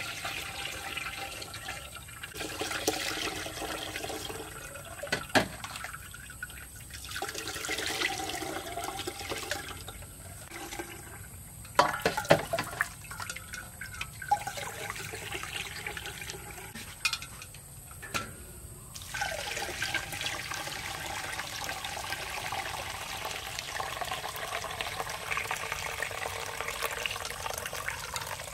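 Watermelon juice poured from a plastic jug through a metal sieve into a glass pitcher, in repeated splashing pours with short breaks between jugfuls. A few sharp clinks come in the middle, and near the end the pouring runs on without a break.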